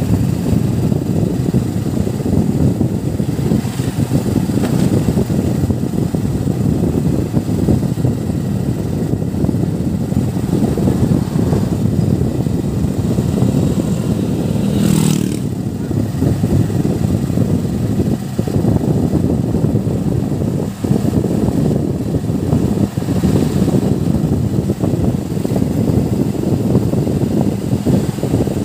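Motorcycle riding along a street: the engine running steadily under a dense rush of wind noise on the microphone.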